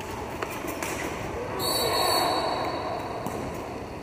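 Indoor roller hockey play: a couple of sharp clacks of stick on ball, then about a second and a half in a referee's whistle blows for about a second while players' voices rise, over the rolling of skates on the rink floor.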